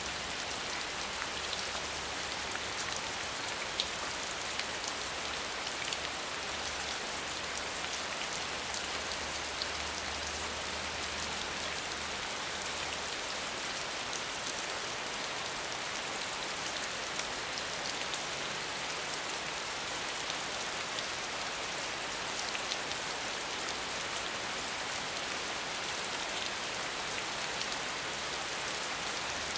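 Steady rain falling on the ground: a dense, even hiss peppered with many small drop ticks.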